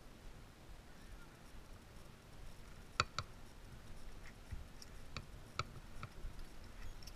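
Faint sharp clicks and ticks over a muffled, near-quiet background: two close together about three seconds in, then a few more scattered over the next three seconds.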